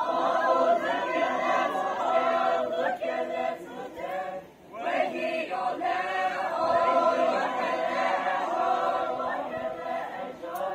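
A group of voices singing a song together without instruments, the dancers' chorus for a traditional circle dance, with a short break about four and a half seconds in before the singing picks up again.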